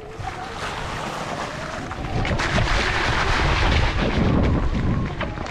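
Wind buffeting the microphone while a Sur-Ron electric dirt bike is ridden, getting louder about two seconds in. The electric motor's whine rises and falls faintly underneath, most audible near the start and the end.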